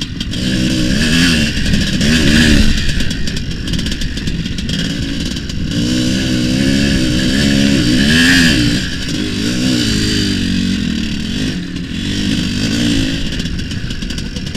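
Tuned IZh Planeta single-cylinder two-stroke motorcycle engine with an expansion-chamber exhaust, revving up and down repeatedly under throttle. The pitch climbs highest about eight seconds in.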